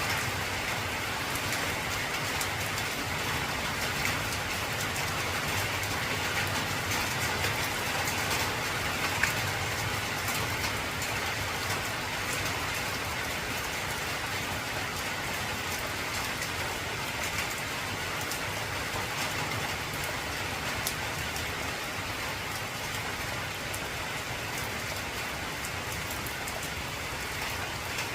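Heavy rain falling steadily on an old corrugated zinc sheet roof: a dense, even hiss full of sharp individual drop ticks.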